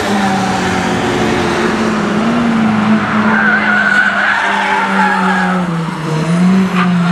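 Two four-cylinder hot hatchbacks, a Honda Civic Type R and a Renault Clio RS, running hard through a bend on a racetrack. The engine note rises and falls with throttle and gear changes.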